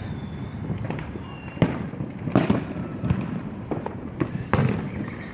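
Distant fireworks going off in many places at once: a steady rumble of scattered pops and booms, with louder bangs about one and a half, two and a half and four and a half seconds in.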